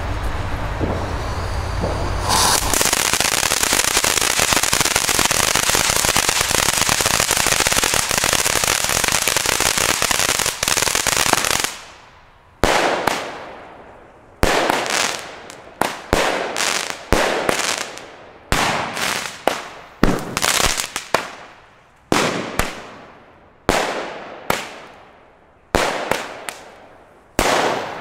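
Gao Elegia firework battery going off: a dense, steady crackling hiss for about nine seconds, then a run of single sharp bangs about one a second, each trailing off.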